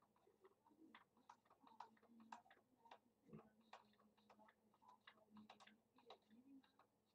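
Near silence: room tone with faint, irregular small clicks, several a second, over a faint steady hum.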